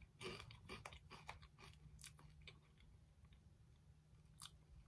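Faint chewing and crunching of cheese Twisties, a crunchy corn snack, in a person's mouth: a run of short crunches through the first couple of seconds, then one more near the end.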